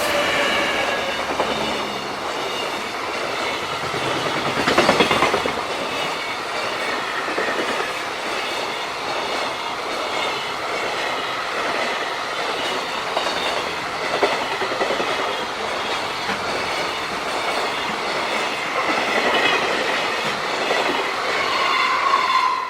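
JR Freight train running past a level crossing, its wagons' wheels clattering over the rail joints.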